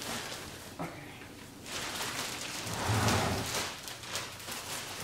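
Plastic-wrapped couch being shifted and turned: the stretch wrap rustles and crinkles over dragging, scraping noises, loudest about three seconds in.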